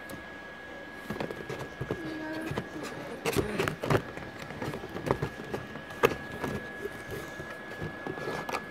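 Plastic blister packs of toy football figures clacking and rustling against each other in a cardboard box as they are handled and sorted, a run of irregular clicks and knocks.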